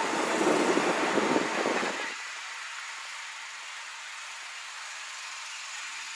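A car engine running close by, loud for about two seconds, then cutting off suddenly and leaving a quieter steady hum.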